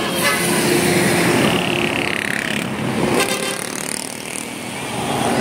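Tour bus running as it drives past, with a brief hiss about two seconds in.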